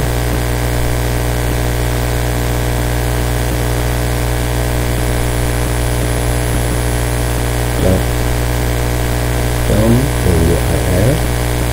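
Steady electrical mains hum with a buzz of many evenly spaced overtones, unchanging in level.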